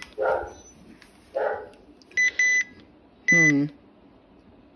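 Key-press beeps from a RadioShack 12-522 weather alert radio as its buttons are pressed while setting it up: two short beeps a little over two seconds in, and another about a second later. A brief wavering whine sounds along with the last beep.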